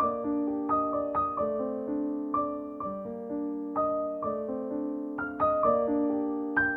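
Background music: a gentle piano melody, notes struck about two or three times a second and each fading away.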